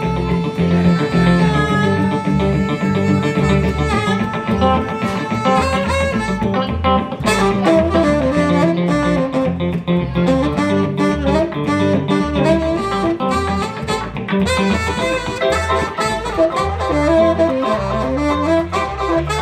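Live band playing an instrumental break, with no singing: electric guitar, electric bass and saxophone.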